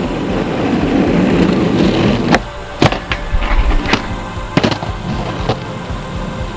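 Music over a rough rumbling noise. About two seconds in, the rumble gives way to a run of about six sharp cracks spread over the next three seconds.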